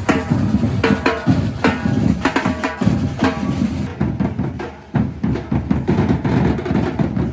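Batucada percussion group playing a dense, fast rhythm on drums and hand percussion, with a short dip about five seconds in before it picks up again.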